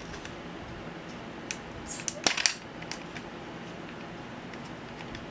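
Plastic clicks from handling a GoPro HD Hero's clear waterproof housing and its plastic mount: a few small clicks, with a short cluster of sharper clicks a little after two seconds in, over a steady low hiss.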